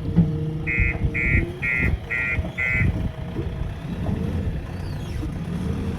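A JCB machine's diesel engine running, with five short electronic beeps about two a second in the first half, typical of a reversing alarm.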